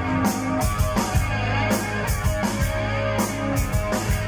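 Live rock band playing an instrumental stretch: electric guitars and bass over a drum kit with repeated cymbal hits.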